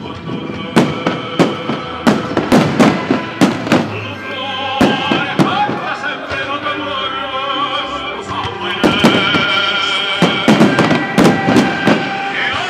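Aerial firework shells bursting in quick clusters, from about a second in to about four seconds and again from about nine to twelve seconds, over loud music with a wavering operatic singing voice.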